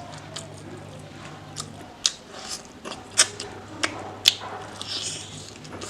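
Close-miked eating sounds, a person chewing and biting food, with four sharp crisp clicks between about two and four and a half seconds in.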